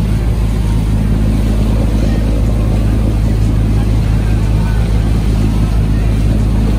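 Motorboat engine running steadily under way, a low, even drone with a constant rushing noise over it.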